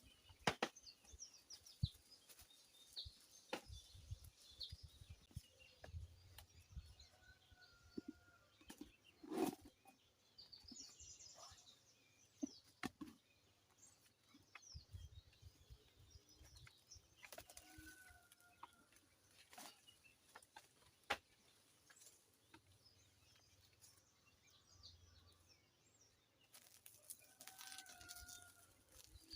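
Faint bird sounds: high chirping, and a short call repeated about three times, roughly ten seconds apart. Scattered small clicks and knocks run through it.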